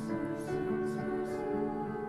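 High school choir singing held notes, with sung 's' consonants hissing through every half second or so.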